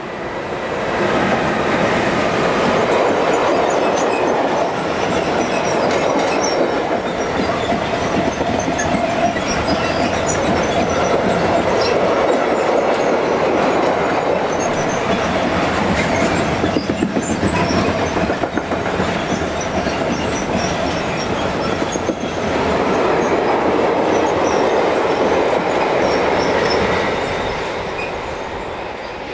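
Freight train passing close: electric locomotives followed by a long string of sliding-wall box wagons, the wheels clattering steadily over the rails with scattered high-pitched squeaks. The noise swells about a second in and fades near the end.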